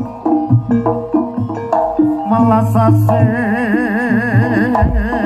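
Kuda lumping gamelan music: struck metallophones play a stepping melody over low drum beats, and a wavering melody line with strong vibrato comes in about three seconds in.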